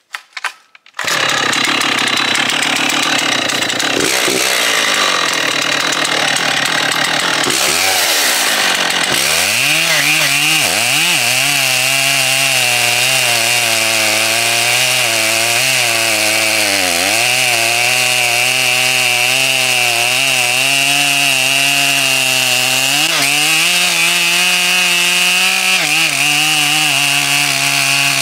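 Stihl 088 Magnum 120cc chainsaw at full throttle, cutting through wood. It comes in suddenly about a second in. The engine note dips and recovers as the chain loads up in the cut.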